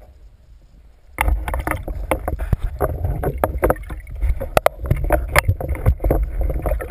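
Water sloshing and splashing around a spear-mounted underwater camera near the surface, with frequent sharp knocks and clatters from handling. It starts suddenly about a second in and stays loud and choppy.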